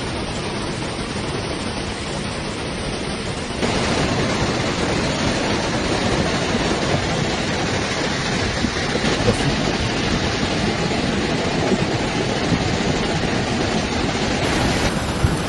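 Rushing muddy floodwater: a steady, even rush of a fast flood torrent, getting louder about four seconds in.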